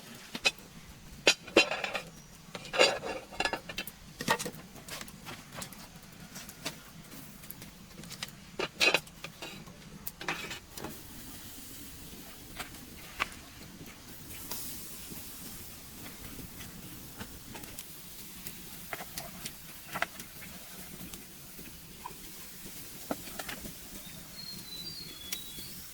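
Scattered clinks and knocks of dishes and utensils being handled, thickest in the first ten seconds and thinning out after, over a steady low background.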